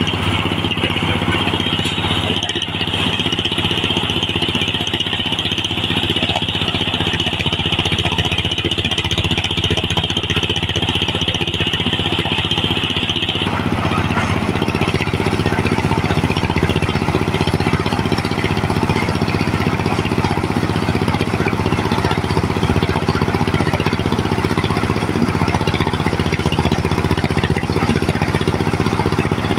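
Diesel engine running steadily, driving a mobile corn sheller with a continuous clatter as cobs are fed through. A high hiss sits on top and cuts off suddenly about thirteen seconds in, after which the clatter grows busier.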